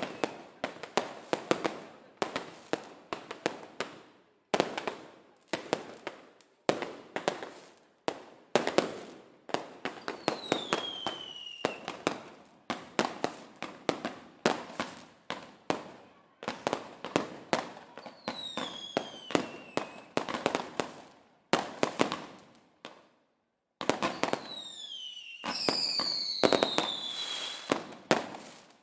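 Fireworks going off: rapid volleys of sharp bangs and crackling, with whistling shells falling in pitch a few times, two overlapping near the end.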